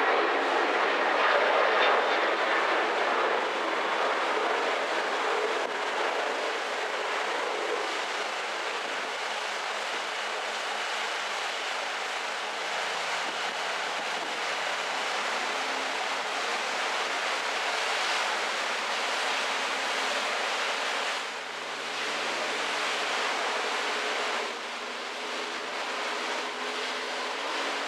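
Steady rushing of wind and sea heard from a cruise ship's open deck, a little louder in the first few seconds, with faint low hums coming and going in the second half.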